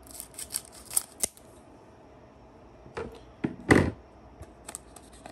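Scissors cutting across the top of a foil booster-pack wrapper: a run of crinkly snips ending in a sharp click within the first second and a half. About three seconds in comes a louder crinkle of the foil pack being handled.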